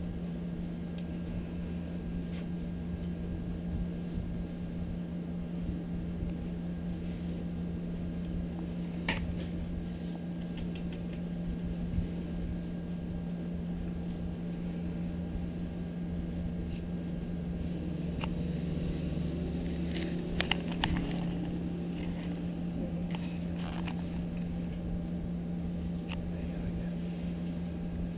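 Wall-mounted room air conditioner running with a steady hum, with a few faint clicks here and there and a short cluster of them about two-thirds of the way through.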